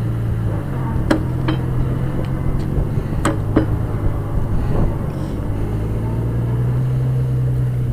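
Old Detroit Diesel engine on heritage railway work equipment running steadily while the machine moves a line, with several sharp metallic clanks about a second in and again around three seconds in.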